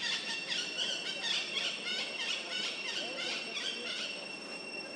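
Animal squeals and chirps, many short high-pitched calls in quick succession that thin out near the end, over a steady high-pitched whine.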